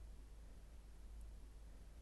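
Near silence: a faint, steady low hum, with tiny high ticks about once a second.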